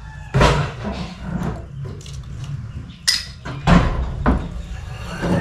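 A series of irregular knocks and clatters, like things being handled and set down, over a steady low rumble. The sharpest knocks come near the start and in the second half.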